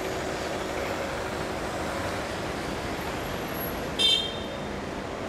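Steady street traffic noise. About four seconds in, a short, high-pitched ringing sound with several tones at once cuts through it.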